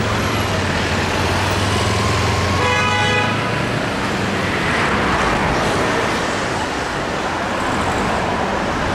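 City street traffic passing close by, with steady engine and tyre noise. A vehicle horn toots briefly, just under a second long, about three seconds in.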